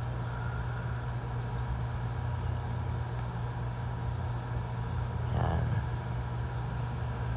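Tattoo machine running at a steady speed: a low, even hum.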